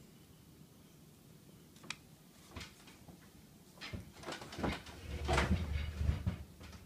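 Handling noises: a few separate clicks and knocks, then a busier stretch of knocking and rustling with low bumps in the second half.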